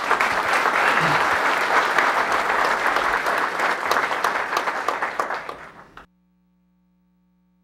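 Large audience applauding, a dense clapping that tapers off and then cuts off suddenly about six seconds in, leaving near silence with a faint hum.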